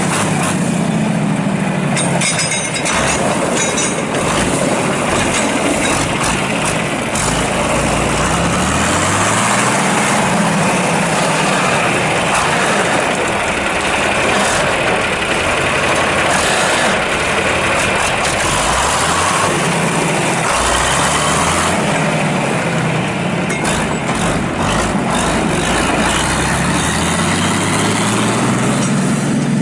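John Deere 4020's six-cylinder diesel engine running loud and steady, its engine speed rising and falling several times.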